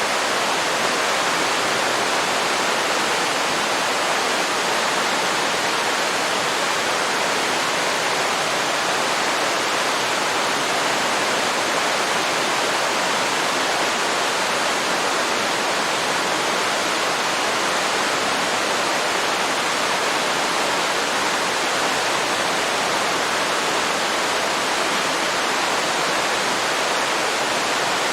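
Waterfall pouring steadily into a river, a constant rushing of water with no change.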